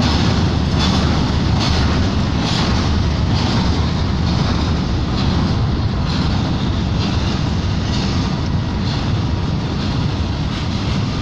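Freight train of open-top wagons rolling past: a steady rumble and rattle of wagon wheels on rail, with a regular clack a little more often than once a second.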